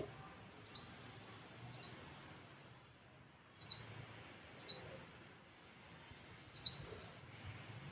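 A small bird chirping, five short high chirps, each a quick falling note, spaced a second or two apart over a faint background hiss.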